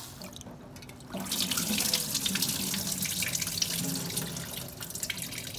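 Tap water running and splashing into a steel pot as raw rice is rinsed by hand and the cloudy rinse water is poured off into the sink. It gets louder about a second in.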